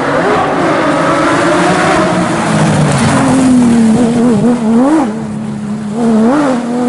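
Racing car engine running at high revs. Its pitch sinks over the first few seconds, then holds fairly steady with several quick rises and dips.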